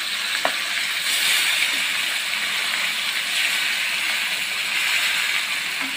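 Masala-coated fish pieces sizzling in hot oil in a frying pan, a steady sizzle with a few small pops.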